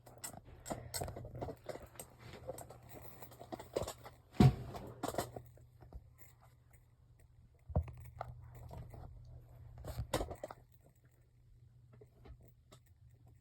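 Small plastic Lego pieces being handled and rummaged through, clicking and clattering irregularly, with a sharper knock about four and a half seconds in.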